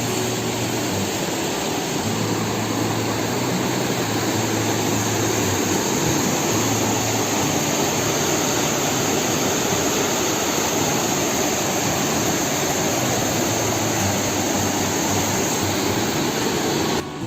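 Waterfall and rapids: water rushing steadily and loudly. It cuts off abruptly near the end.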